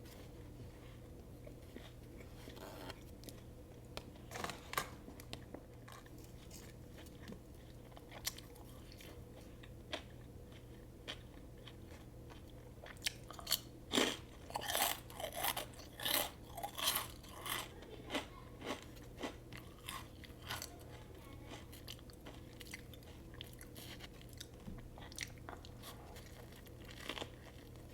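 Close-miked chewing of a turkey sub sandwich: crisp crunches and wet chewing. The crunches come thick and loud about halfway through, then thin out into quieter chewing.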